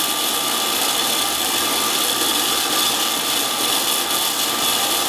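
Coffee bean cooling machine running steadily, its fan blowing air through freshly roasted beans in the glass chamber, with a faint constant whine over the rush of air.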